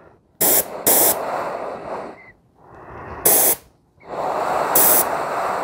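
Gravity-feed paint spray gun hissing in three trigger pulls: a burst of about two seconds, a short one past three seconds in, and a longer one from four seconds in. Each opens with a brief sharper hiss of air. The gun's pattern control is opened only about one turn from closed, so it is test-spraying Cerakote as a narrow dot for detail work.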